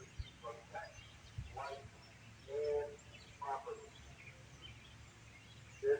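Birds chirping, with several short calls spaced a second or so apart, over outdoor background noise. No siren is sounding.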